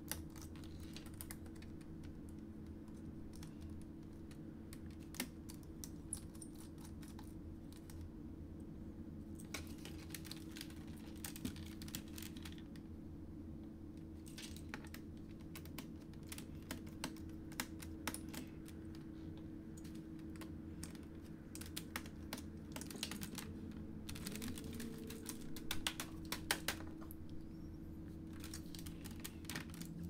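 Small precision screwdriver working screws out of a laptop's plastic bottom case: faint, scattered light clicks and ticks, thicker in two stretches, over a low steady hum.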